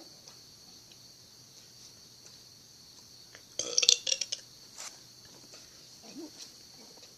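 A person burping: one loud burp lasting under a second, about three and a half seconds in, then a faint short one a little later.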